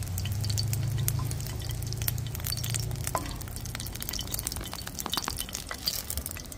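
Hot oil crackling in a stainless steel frying pan as fried boiled eggs are lifted out with a wooden spoon, over a low steady hum that fades about four seconds in. A single light clink rings out about three seconds in.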